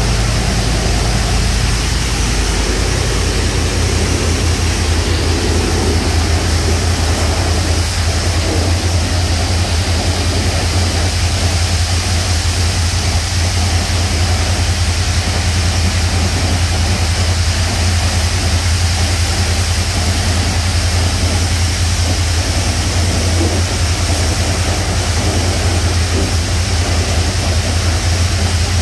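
Touchless automatic car wash spraying a side-by-side UTV: a steady hiss of high-pressure water spray over a continuous low drone.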